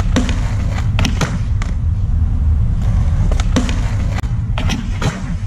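Skateboard wheels rolling on concrete with a steady low rumble, broken by several sharp clacks as the board pops, hits and slides along a concrete ledge.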